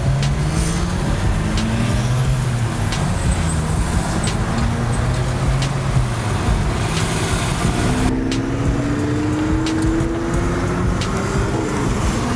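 Car engine and road noise heard from inside a moving car. The engine note rises steadily for about three seconds starting around eight seconds in, as the car accelerates. A few light clicks sound here and there.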